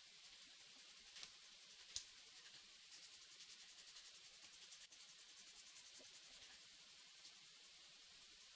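Faint sandpaper rubbing on a black-dyed maple knife handle being sanded by hand, in quick, even strokes, with a single sharp click about two seconds in.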